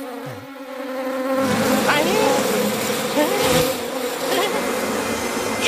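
Swarm of bees buzzing, setting in about a second and a half in and holding steady, with a few short rising-and-falling squeaks over it.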